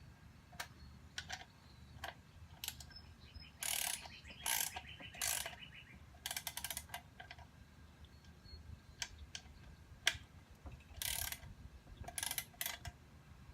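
Socket ratchet wrench clicking in short bursts as nuts are run down and tightened, with scattered single clicks and clinks of the metal tools between the bursts.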